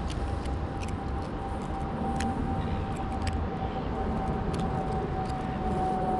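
Steady low city rumble, typical of distant traffic, with a constant thin hum and a few scattered light clicks.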